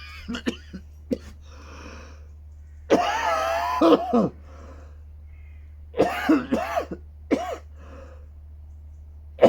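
A man with a cold coughing in two harsh fits, about three seconds in and again about six seconds in, with a shorter cough after. These are chesty coughs from a cold or flu.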